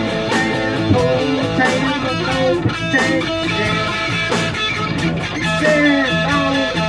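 Electric guitar playing a blues lead in A, with bent notes, over a blues backing track in A.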